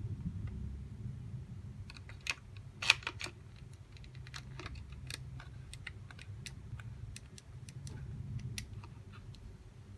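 Light, irregular clicks and taps of small hard plastic parts being handled, starting about two seconds in, the sharpest near three seconds, over a low background hum.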